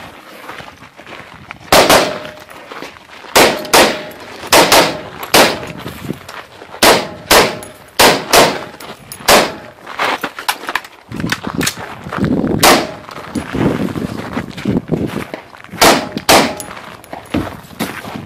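Colt LE6920 AR-15 carbine in 5.56 mm, fitted with a muzzle brake, firing about sixteen single shots, often in quick pairs, with a longer pause late in the string.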